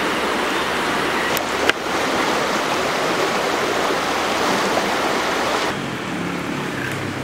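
Swollen, muddy floodwater rushing steadily past a damaged river crossing, with a single sharp click about a second and a half in. Near the end the rush drops away abruptly, leaving a quieter low hum.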